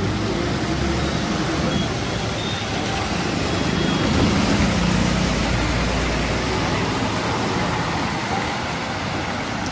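Road traffic: vehicles running under a steady, dense hiss, with a low engine hum that swells a little around the middle.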